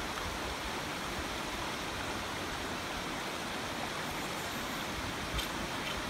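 Steady rushing of a river flowing nearby, with one light click near the end.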